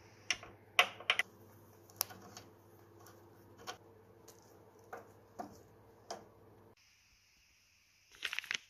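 Scattered sharp metal clicks and taps, about nine over six seconds, from parts and tools being handled inside a Ford Model T transmission through its open inspection cover. Near the end comes a brief crinkle of a plastic parts bag.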